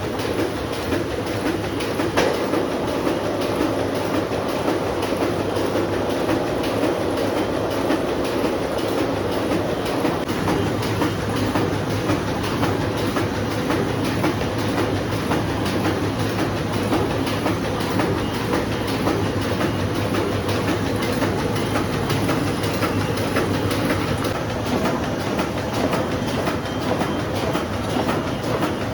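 Offset printing press running steadily, with a dense, rapid mechanical clatter that holds even throughout.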